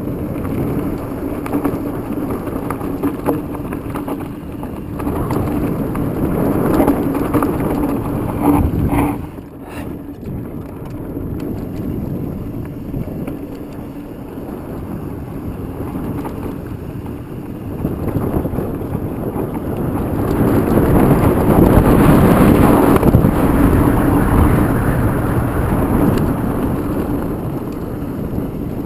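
Wind rushing over the microphone while a mountain bike rolls fast down a dirt singletrack, with tyre and frame rattle from the trail. It drops briefly about ten seconds in and is loudest a little after twenty seconds.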